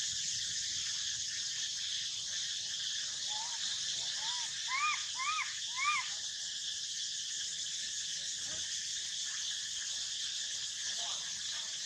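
A young macaque giving a run of about six short whimpering coos, each rising then falling in pitch, in quick succession from about three to six seconds in. Behind it runs a steady high drone of forest insects.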